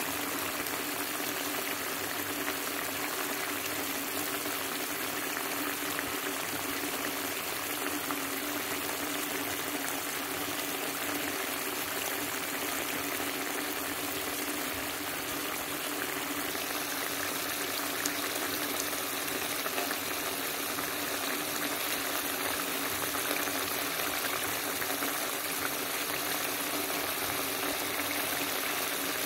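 Mackerel curry simmering in a frying pan on the stove: a steady bubbling hiss with faint scattered pops.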